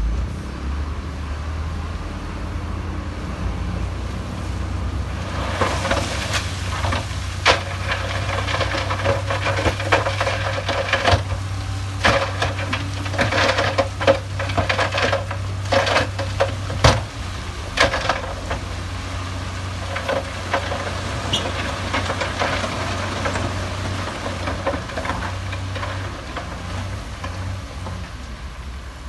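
Heavy diesel earthmoving machinery running with a steady low engine hum. From about five seconds in to about eighteen seconds, irregular crunching and clattering of rock and metal sits over the engine, then dies away.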